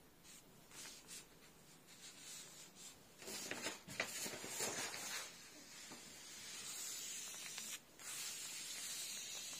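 Faint rustling and scraping of a hand sliding over painting paper: scratchy strokes about three to five seconds in, then a steadier hiss.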